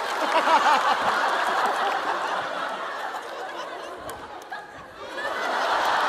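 Studio audience laughing, fading about four seconds in and swelling again near the end.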